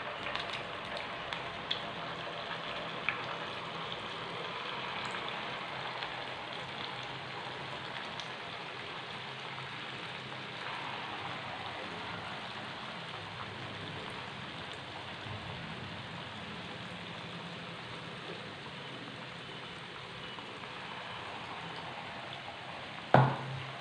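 Hot oil sizzling steadily as balls of banana and wheat-flour dough deep-fry in a pan. A few light clicks come in the first few seconds, and there is a short loud knock near the end.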